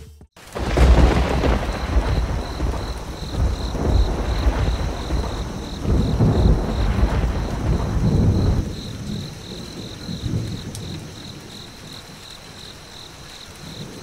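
Thunderstorm: thunder rumbling over heavy rain. The thunder dies away about eight and a half seconds in, leaving steady rain.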